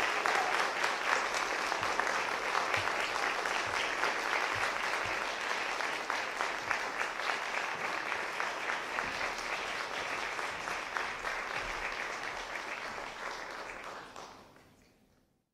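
Audience applauding steadily, fading out over the last second or so.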